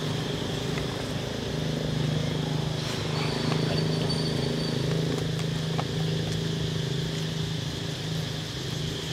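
A motor engine running steadily at idle, a low even hum, with a few faint clicks over it.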